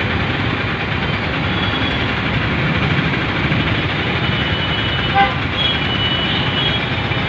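Heavy road traffic with a steady hum of engines and scattered horn toots. A short, sharp beep about five seconds in is the loudest sound.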